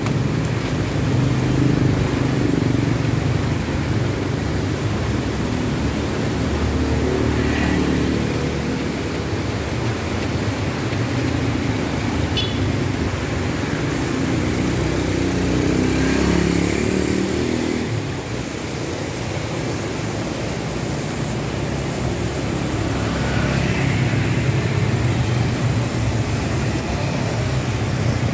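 Steady road traffic rumble, motorcycles and cars passing close by, swelling and fading as they go.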